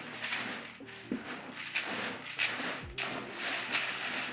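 Hands mixing dry fish-feed pellets and cream-style corn in a bucket into pack bait: a steady run of rustling, scraping strokes, roughly one every two-thirds of a second.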